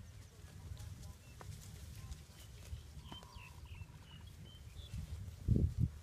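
Open-air ambience: wind rumbling on the microphone, with a few short, high bird chirps in the middle and two heavy low thumps near the end.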